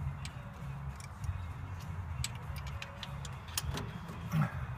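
Sparse, irregular light clicks of metal hand work as the distributor hold-down bolt on an AMC 232 inline six is tightened, over a steady low rumble.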